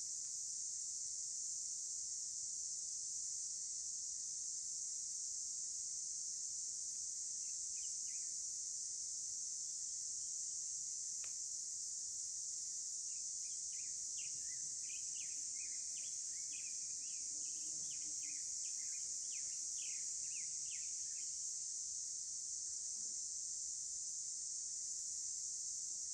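Steady high-pitched chorus of insects such as crickets, with a bird giving a quick series of chirps for several seconds in the middle.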